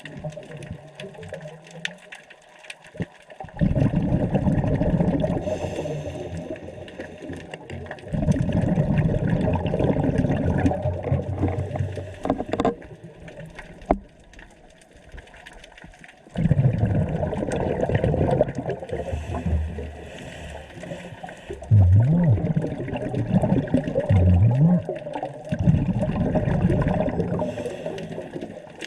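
Scuba diver breathing through a regulator underwater: four long bursts of exhaled bubbles, each several seconds, with quieter gaps between them for the inhales.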